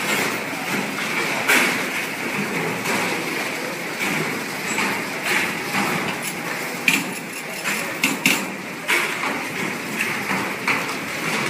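Multi-spindle automatic transformer coil winding machines running: a steady high whir with frequent clicks and clacks, and a few sharper clacks about seven to eight seconds in.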